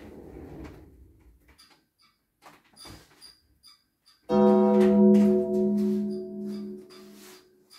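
A light rustling for the first second or so, then near quiet with faint ticks. About four seconds in, a single sustained keyboard chord sounds suddenly and fades away over about three seconds.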